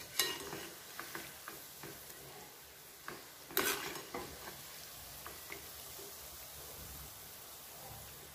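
Shankarpali dough pieces sizzling as they deep-fry in hot oil, while a metal slotted spoon stirs them, clinking and scraping against the metal pan. Two sharper clanks stand out, one just after the start and one about three and a half seconds in.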